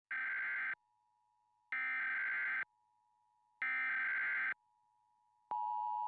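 Emergency Alert System broadcast alert: the digital SAME header sent three times as three harsh data-tone bursts of just under a second each, then, about half a second before the end, the steady two-tone EAS attention signal begins.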